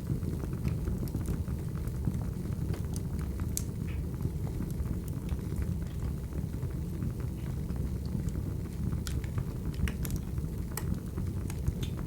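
Crackling wood fire ambience: a steady low rumble of burning logs with scattered sharp pops and crackles.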